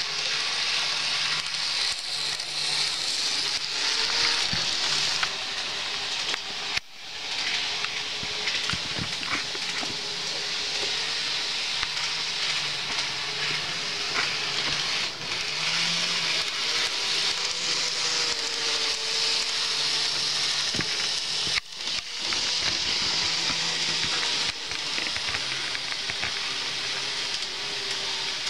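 An N-scale model train running on the track: a steady electric motor hum with rattling wheel noise over a hiss. It drops out briefly twice.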